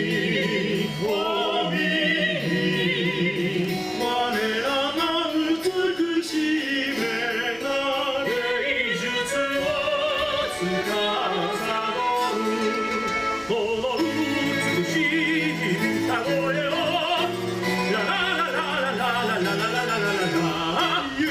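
Stage-show music in a classical style: operatic singing with strong vibrato over an orchestral accompaniment, played continuously.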